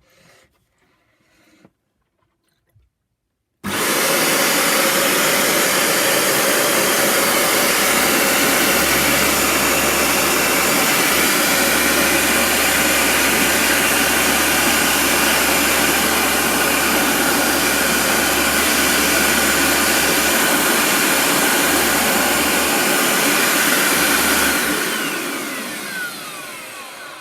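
Bissell ProHeat 2X Revolution Pet Pro carpet cleaner switched on about four seconds in, its motor running loud and steady for about twenty seconds during a test of the repaired Clean Shot spray. It is then switched off and winds down with a falling whine.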